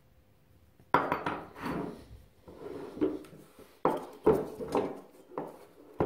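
Metal spring-seat rings and parts of a motorcycle rear shock clinking and knocking as they are handled and set down on a workbench: a run of sharp knocks and scrapes starting about a second in, the loudest near the start, in the middle and at the end.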